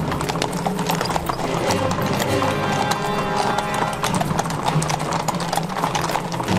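Horses' hooves clip-clopping on stone paving, with background music playing throughout.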